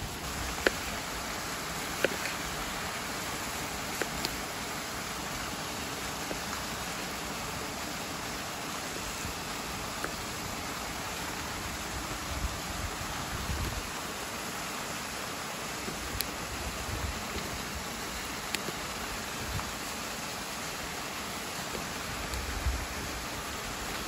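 Steady rush of a waterfall, with scattered sharp crackles from a wood fire.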